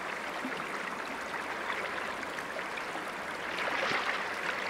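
Steady rush and ripple of a flowing river, swelling slightly near the end.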